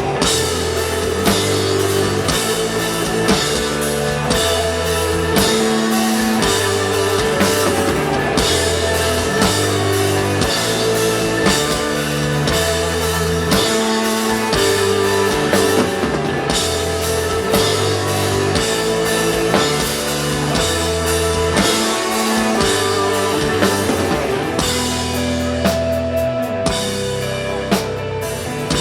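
Live rock band playing instrumental desert rock: a drum kit keeps a steady beat under a repeating bass line, while a guitar holds a long sustained note.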